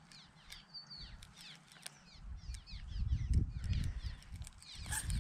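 Wild birds chirping and calling, with many short falling chirps and an occasional clear whistled note. A low, uneven rumble comes in about two seconds in and peaks midway, and a sharp click sounds near the end.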